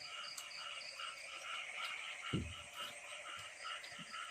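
A chorus of frogs croaking in a steady rhythm, about three short calls a second. A soft low thump a little after two seconds, with a few fainter ones near the end.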